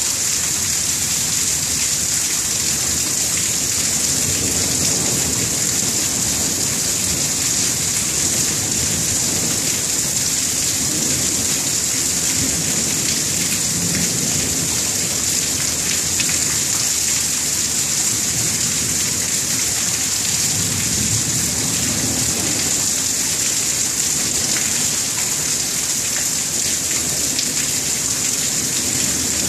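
Steady heavy rain hissing throughout, with low rolls of thunder swelling up near the middle and again about two-thirds of the way through.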